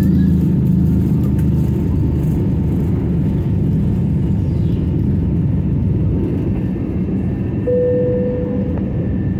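Jet airliner engines at takeoff power heard inside the cabin: a loud, steady rumble. The rolling vibration from the runway smooths out about two seconds in as the plane lifts off. A short steady tone sounds for about a second near the end.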